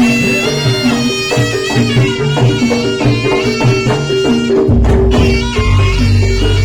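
Live Javanese jaranan (kuda lumping) ensemble music: a reedy slompret melody over drums and gamelan percussion. A deep low tone comes in about two-thirds of the way through.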